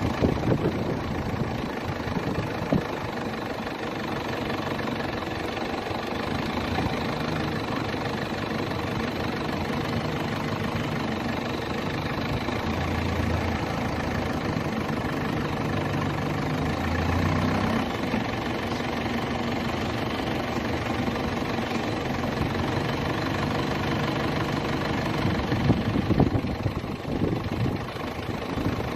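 Motor vehicle engine running steadily, its low hum shifting in pitch a few times around the middle.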